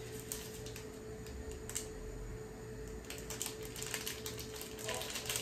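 Paper gelatin-powder sachet crinkling and being tapped as the powder is shaken out over a pan of hot water: light, irregular clicks that come thicker near the end. A steady hum sits underneath.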